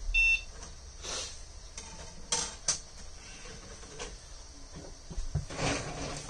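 Packard Bell PC's internal speaker giving one short, high-pitched beep at power-on, the single beep that signals the power-on self-test has passed. A couple of sharp clicks follow about two and a half seconds in, and a brief rustle near the end.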